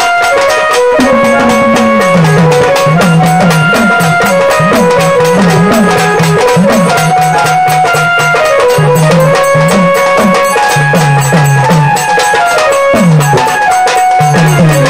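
Live Marathi folk dance music: a strapped two-headed hand drum beating a steady rhythm under a keyboard melody with a stepping bass line.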